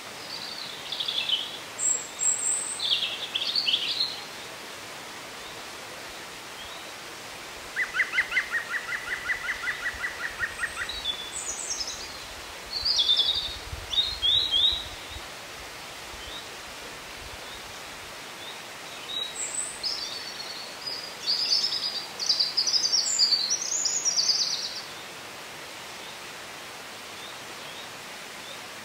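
Woodland birdsong: several birds singing in separate phrases, including a quick run of repeated notes about eight seconds in, over a steady background hiss.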